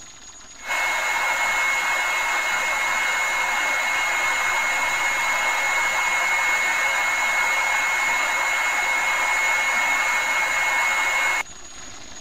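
Steady rushing noise with a constant high-pitched whine, like a small motor running. It starts abruptly about a second in and cuts off abruptly near the end.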